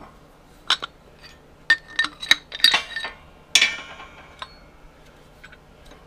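Metal parts clinking and knocking as a piston, its wrist pin and a welded steel fixture block are handled. There are several sharp clinks with brief ringing, bunched between about a second and a half and four seconds in.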